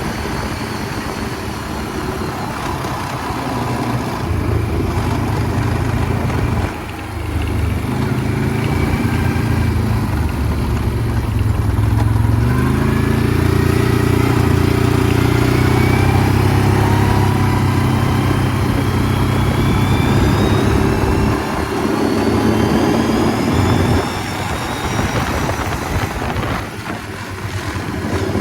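2009 Can-Am Outlander 800 ATV's V-twin engine running under way, its pitch climbing as it accelerates twice, with short let-offs of the throttle about a quarter of the way in and near the end.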